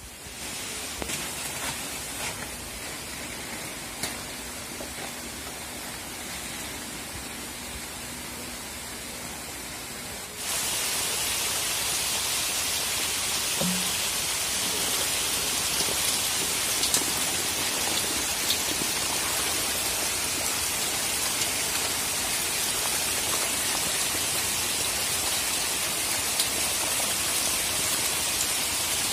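A quieter steady hiss with a faint low hum, then, about ten seconds in, a sudden change to a loud, even, rain-like splashing with small ticks: a crowded tank of hybrid magur catfish churning the water as they take feed.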